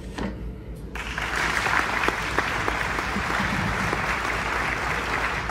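Applause from many clapping hands, starting abruptly about a second in and holding steady.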